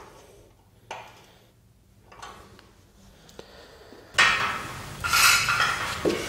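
Aluminium solar-panel mounting frame being worked by hand: a few faint clicks as a bracket bolt is tightened, then louder metal clinking and scraping from about four seconds in as the frame is handled.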